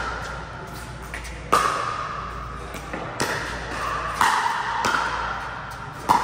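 Pickleball paddles striking a plastic pickleball in a rally: five sharp pops about a second apart, with fainter ticks of the ball bouncing on the court between them. Each hit rings on in the echo of a large indoor hall.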